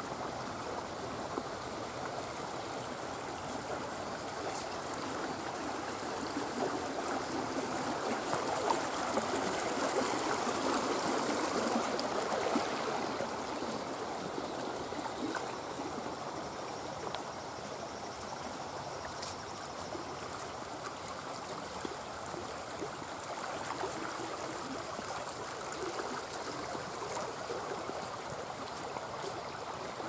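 Shallow brook running fast over stones, a steady rush and splash of water that grows a little louder about a third of the way through.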